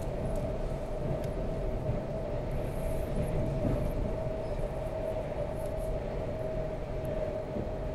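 ED4M electric multiple unit running, heard from inside the carriage: a steady low rumble of wheels on rails with a constant mid-pitched hum and a few faint ticks.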